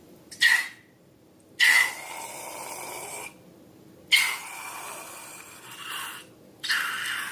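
Air hissing out of a balloon's neck in four separate bursts, the longest lasting nearly two seconds, most with a faint whistling tone.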